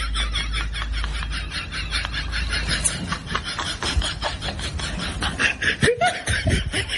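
Rapid, breathy laughter: snickering in quick, evenly spaced pulses, with a low steady hum underneath for the first few seconds.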